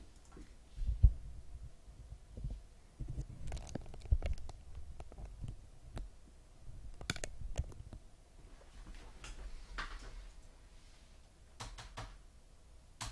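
Handling noise close to the microphone: irregular low thumps and bumps with scattered sharp clicks and a short rustle about ten seconds in.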